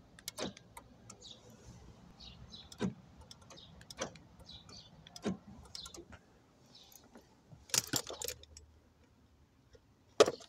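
Remote central locking fitted to a Fiat Albea being worked from the key fob: sharp clicks and clunks from the door lock actuators and the control unit's relay, one every second or two, a quick flurry of clicks about eight seconds in and a loud clack near the end.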